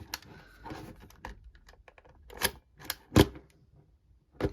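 Plastic clicks and knocks from an Instax Mini 11 instant camera being handled and switched on by extending its lens. A sharp click about three seconds in is the loudest.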